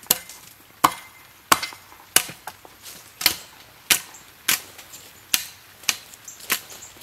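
A hand tool chopping into soil and roots: a steady run of about eleven sharp strikes, one every two-thirds of a second.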